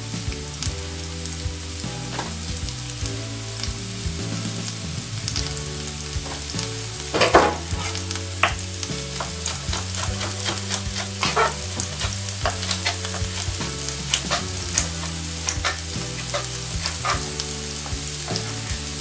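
Sliced carrot, bell pepper and onion sizzling in a non-stick frying pan, with scattered crackles and pops and a louder burst of spitting about seven seconds in. A low hum that shifts pitch now and then runs underneath.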